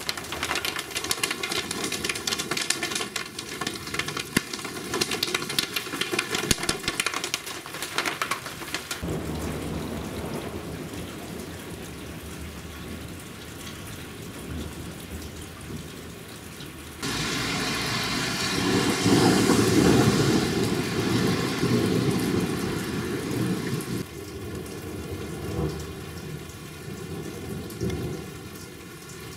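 Rain falling during a thunderstorm. For the first nine seconds it is a dense patter of drops striking hard surfaces. After that the rain is lighter, with low rumbling thunder. The sound jumps abruptly louder about 17 seconds in and drops back about 24 seconds in.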